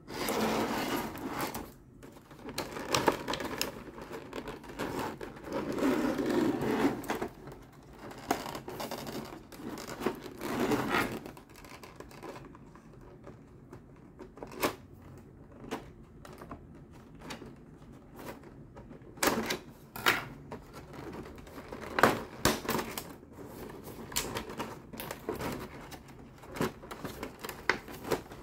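Hands handling a toy box and its clear plastic blister tray: rustling and crinkling of plastic and card for the first dozen seconds, then a run of sharp plastic clicks and taps.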